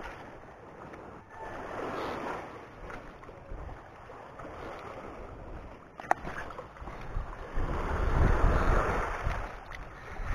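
Small waves washing on a rocky, pebbly shore, with wind buffeting the microphone in gusts, strongest near the end. A single sharp click about six seconds in.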